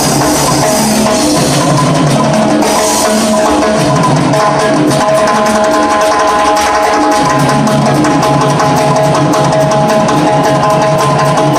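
Cuban dance orchestra playing live: drum kit and congas drive a fast, steady percussion groove under held instrumental tones.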